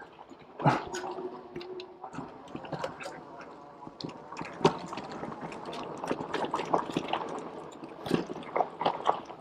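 HAOQI Cheetah full-suspension electric mountain bike ridden over rough trail and logs: a steady run of clicks, knocks and rattles from tyres, chain and frame, with a brief steady whine about a second in.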